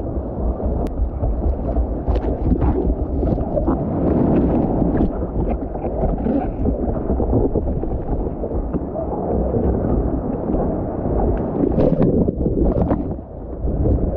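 Whitewater surf rushing and splashing around a surfboard, heard close up from a camera on the board's nose, with water and wind buffeting the microphone into a deep rumble and short splashes crackling through.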